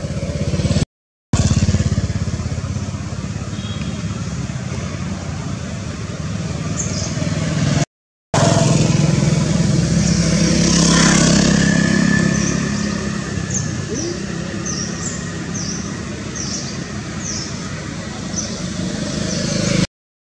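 Steady low rumble of passing motor traffic that swells about ten seconds in, broken by three brief gaps of silence. A run of short high chirps comes every half second or so over the last several seconds.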